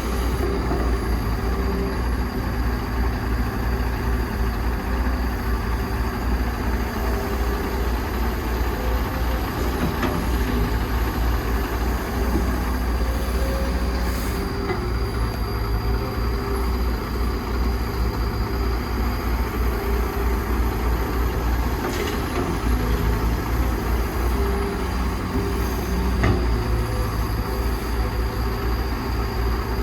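Heavy excavator's diesel engine running steadily, its low drone shifting in strength as the machine works, with a few brief sharp knocks in the second half.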